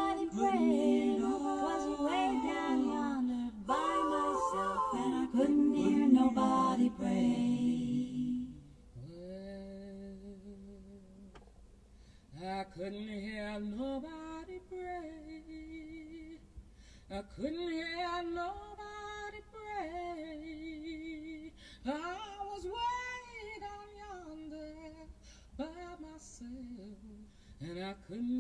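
An a cappella vocal recording played through a Tesla Model 3's standard sound system, heard inside the cabin. A full group of voices sings loudly for the first eight seconds or so, then it drops to a quieter, sparser passage of fewer voices.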